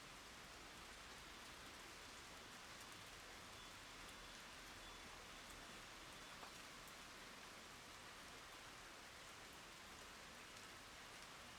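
Rain falling on wooden boards and rippling puddles: a faint, steady hiss with scattered single drop ticks.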